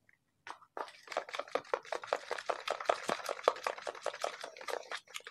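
Raw eggs being beaten briskly in a plastic bowl: quick, rhythmic strokes of a whisk clicking and splashing through the liquid, several a second, starting about half a second in.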